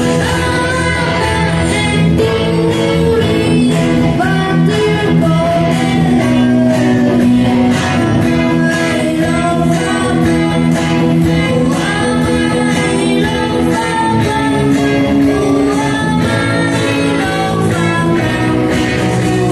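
A song sung with instrumental accompaniment, the voice carrying the melody over held chords.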